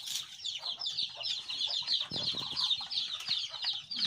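Many small birds chirping in a dense, continuous chatter of quick, high peeps, with a few faint knocks beneath.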